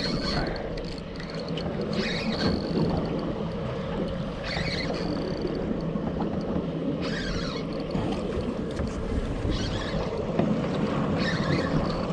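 Steady drone of a boat's outboard motors running, mixed with water noise, with short brighter rustles every second or two.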